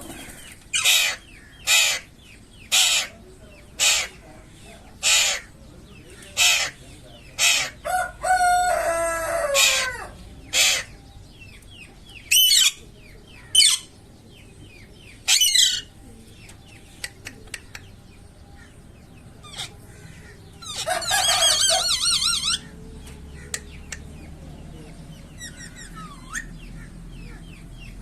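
Parrot squawking: a run of short harsh calls about one a second, then scattered calls, with two longer drawn-out calls about nine and twenty-one seconds in.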